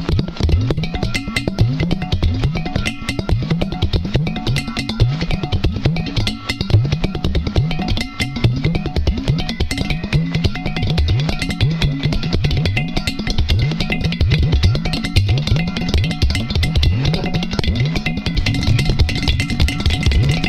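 Several udu clay pot drums played together in an interlocking polyrhythm: deep bass tones from the pots' side holes that bend in pitch, over a dense run of quick finger taps on the clay bodies.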